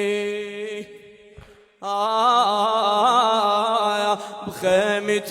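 A man singing a Shia Husayni lament unaccompanied. A long held note fades out about a second in, then after a short pause he sings a long, wavering, ornamented phrase, and another begins near the end.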